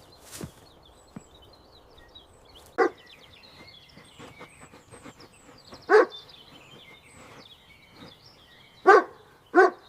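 A dog barks four times, single short barks spaced a few seconds apart, the last two close together near the end. Small birds chirp faintly throughout.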